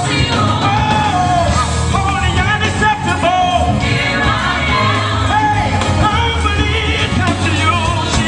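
Gospel choir singing with a live band, held sung notes over a steady bass line.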